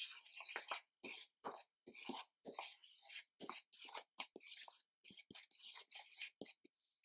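Metal spoon stirring a dry seasoned flour coating mix in a bowl: quiet, quick scraping strokes, about three a second, as the flour is turned over and the spoon rubs against the bowl.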